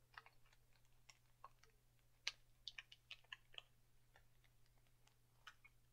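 Faint, irregular small clicks of someone chewing a Skittle, thickest about two to four seconds in, over near silence.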